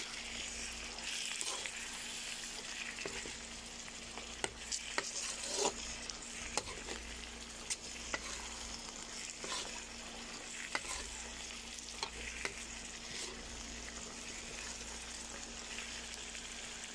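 Bitter melon and anchovy stir-fry sizzling in a wok, with a metal spatula scraping and clicking against the pan at irregular moments as it is stirred.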